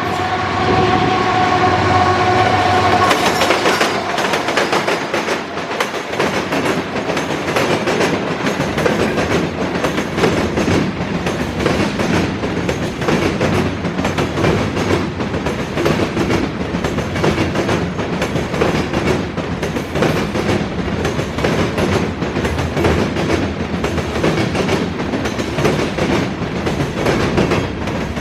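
Freight train locomotive horn sounding a chord that stops about three seconds in, then the freight train passing close by: a steady rumble of steel wheels on the rails with a rapid clickety-clack of wheels over rail joints.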